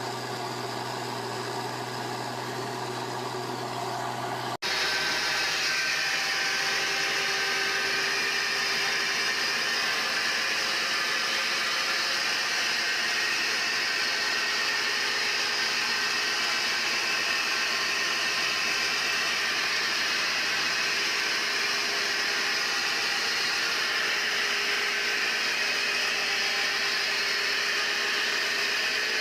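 A machine running steadily, with an abrupt cut about four and a half seconds in, after which it runs louder and hissier.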